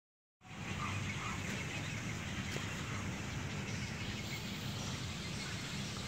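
Steady outdoor background noise with a low rumble and hiss, and a couple of faint bird calls about a second in.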